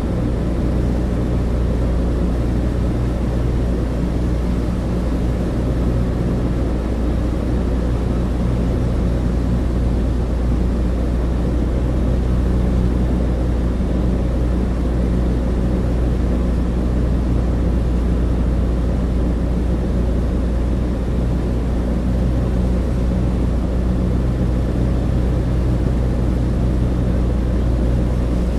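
Cabin interior of a Douglas DC-3 in flight: the twin radial piston engines and propellers make a steady, deep, even drone with a low hum running under it.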